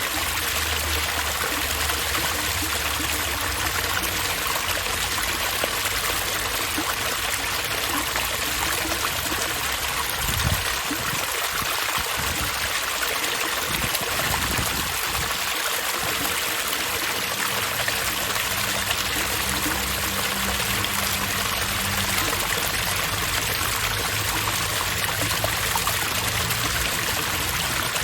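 Water running steadily in a park water feature, an even splashing and trickling, with a low rumble underneath that fades for a few seconds near the middle.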